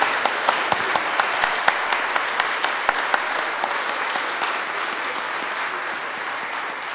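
Audience applauding, with one set of nearby hands clapping loudly at about four claps a second over the rest of the crowd. The applause gradually thins out in the second half.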